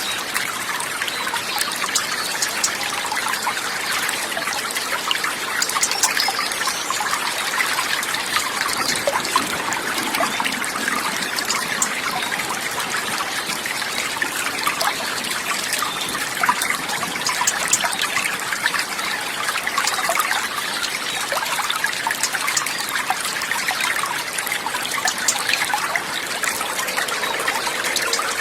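Water trickling and splashing steadily, an even rush full of small splashes, like a small stream.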